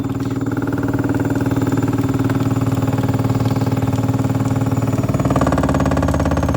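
Fagor washing machine spinning at high speed with its door open, the motor whining and the drum pulsing rapidly and evenly. About five seconds in the sound turns deeper and fuller.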